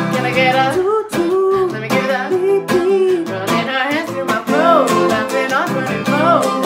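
Twelve-string acoustic guitar strummed steadily, with a melody line over it that glides up and down in arcs.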